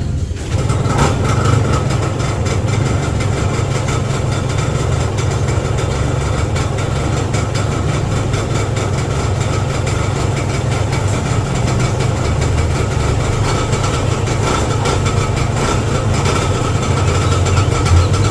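Yamaha TZM's two-stroke single-cylinder engine running steadily at idle soon after starting, following a carburettor rebuild.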